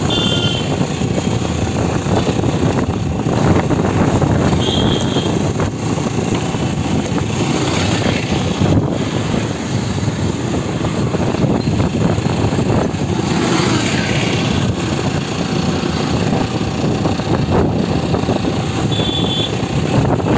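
Steady engine drone and rushing wind and road noise of a road vehicle, heard from on board while it drives along. Two short high-pitched beeps sound, about five seconds in and near the end.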